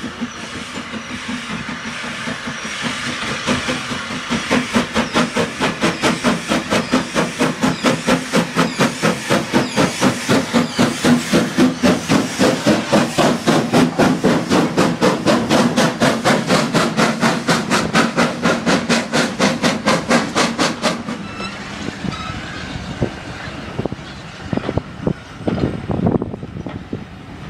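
Two Austerity 0-6-0 saddle tank steam locomotives working a train past, their chimney exhaust beats coming in a fast, even rhythm that grows louder as they approach. The beats stop abruptly about three-quarters of the way through. After that the coaches roll by with clicks and knocks from the wheels.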